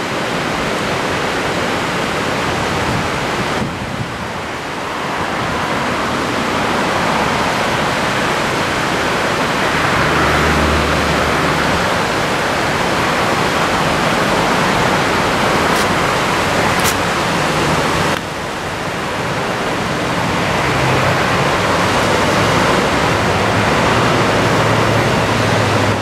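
Steady wash of small surf from a typhoon swell breaking on a sandy beach. The noise swells and eases, with two abrupt dips.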